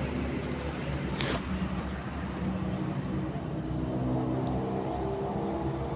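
Road traffic: a steady low rumble of passing vehicles, with an engine's drone swelling through the middle and later part. A single sharp click sounds about a second in.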